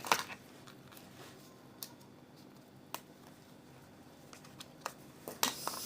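A few faint, sharp clicks and taps, scattered a second or so apart, then a burst of rustling handling noise near the end: a mobile phone being handled and its buttons or case clicked.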